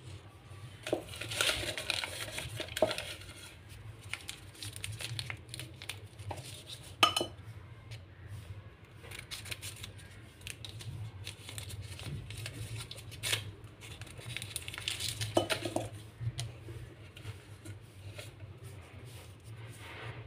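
Folded paper packets rustling and crinkling as they are picked out of a glass bowl and unwrapped, with a few sharp clinks of hard items against the glass, the loudest about seven seconds in. A steady low hum runs underneath.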